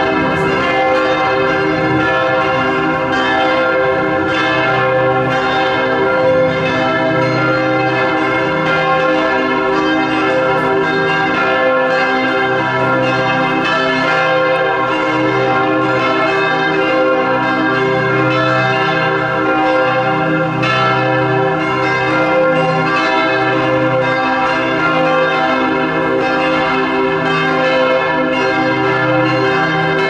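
The bells of Bern's Heiliggeistkirche ringing together in a continuous peal, strike after strike overlapping as each bell rings on.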